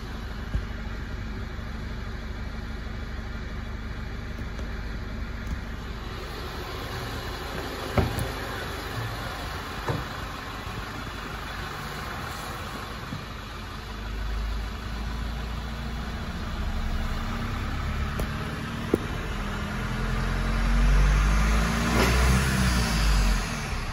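Nissan Navara D23's YS23DDT 2.3-litre single-turbo four-cylinder diesel running at idle, with a couple of sharp knocks early on. Near the end it is revved, its pitch rising and falling, and this is the loudest part.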